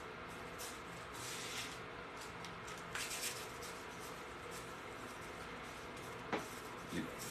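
Faint rustle of broccoli seeds being shaken out of a seed packet onto a grow tray, in a few short soft bursts over a low steady room hum, with a small click near the end.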